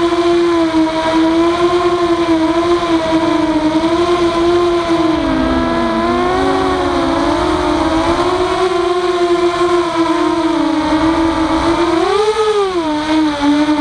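Walkera F210 racing quadcopter's brushless motors and propellers whining in flight, a steady high hum whose pitch wavers with the throttle. The pitch sags about five to six seconds in and swoops briefly up and back down about twelve seconds in.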